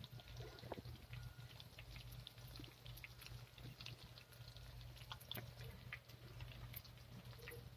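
Meat frying in oil in a wok over a wood fire: faint sizzling with scattered pops and crackles, over a steady low hum.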